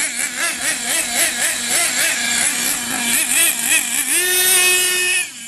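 Remote-controlled monster truck's motor whining, its pitch swinging up and down over and over as the throttle is worked, then rising to one steady higher pitch for about a second before cutting off near the end.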